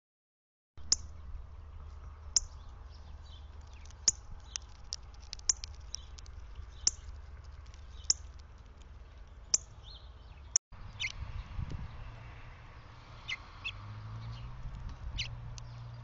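Northern cardinal giving sharp, high chip calls, one every second and a half or so, picked up by the feeder camera's microphone. After a short break, a few other short bird calls follow, with a low hum from about two-thirds of the way in.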